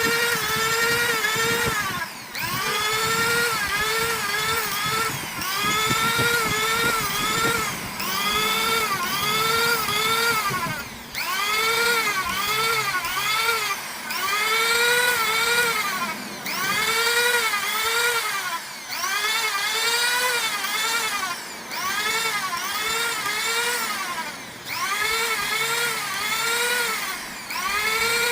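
Small electric sanding tool running against a workpiece, sanding off CNC machining texture; its whine keeps sagging and recovering in pitch about once or twice a second, with short drops in level every couple of seconds.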